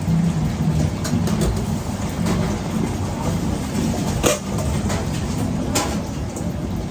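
Steady low mechanical hum of a food truck's kitchen equipment, with a few sharp clinks and knocks of utensils and containers, the loudest about four seconds in.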